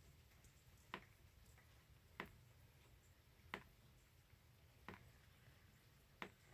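Near silence broken by faint, sharp ticks at an even pace, about one every second and a quarter, five in all.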